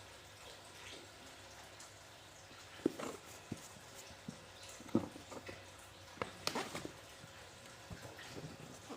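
Quiet handling noises: a few scattered clicks, knocks and light rustles over a faint steady hiss, busiest about halfway through.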